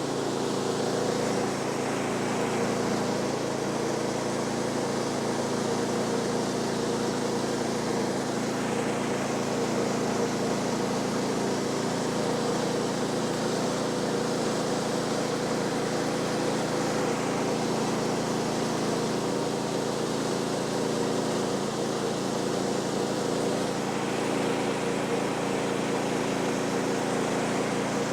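Small gasoline engine of a portable bandsaw mill running steadily at speed, with a fainter higher-pitched band that rises and fades in the background.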